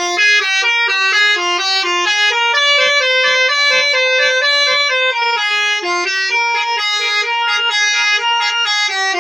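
Basuri telolet horn, a multi-trumpet musical air horn on a bus, playing a fast melody of stepping notes, two or three sounding together, with a longer held note midway.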